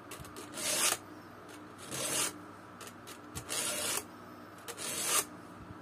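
Round file pushed across a chainsaw chain's cutter tooth: about four separate rasping strokes, a little over a second apart.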